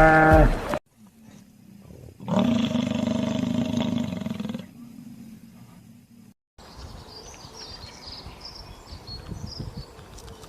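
A lion roars once, a single loud roar of about two seconds. It is followed by a quieter outdoor background with birds chirping faintly.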